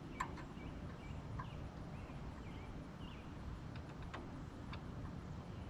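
Outdoor background with faint short bird chirps over a low steady rumble, and a few sharp clicks scattered through it.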